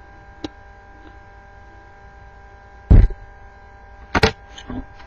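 Steady electrical mains hum with a loud, heavy thump about three seconds in and two or three sharper knocks near the end, from objects being handled and set down at a workbench.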